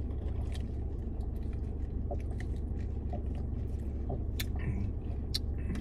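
Iced tea being sipped through plastic straws: scattered small clicks of lips and swallowing, over a steady low hum in the car cabin.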